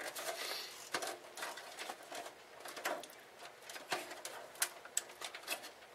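Faint, scattered clicks and knocks of hands working inside a desktop computer case, fitting an expansion card into its slot.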